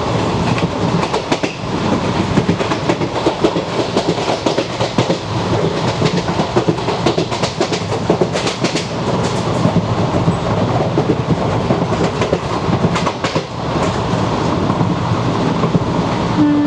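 Track sounds inside a moving ICF passenger coach: wheels rumbling and clattering over the rails, with a few sharp clacks at rail joints. Right at the end the WAP4 electric locomotive's horn begins, a steady tone.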